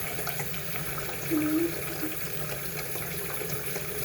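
Water running from a faucet into a plugged sink, filling it, a steady rush throughout. A short low tone sounds about a second and a half in.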